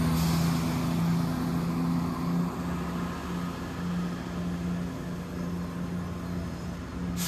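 Class 168 diesel multiple unit pulling away from the platform: the steady drone of its diesel engines fades as the train moves off into the distance.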